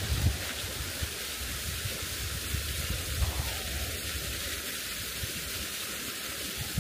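Waterfall: a steady rush of falling water, with an uneven low rumble underneath.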